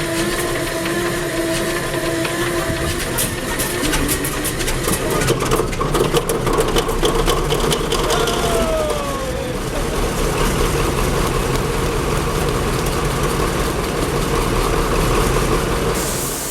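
Krauss Maffei diesel-hydraulic locomotive running under its own power, its engine droning steadily. A run of rapid clicks and rattles comes a few seconds in, a short falling whine about halfway, and a burst of high air hiss near the end.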